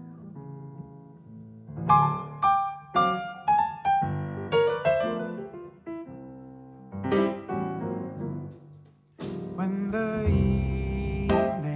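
Grand piano playing a solo jazz intro of struck chords and single-note runs. About nine seconds in, bass and drums with cymbals come in and the full band plays.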